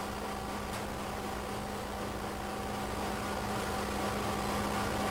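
Steady machinery noise of a running waste-distillation plant: an even hiss under a constant low hum, with a couple of fainter steady tones above it.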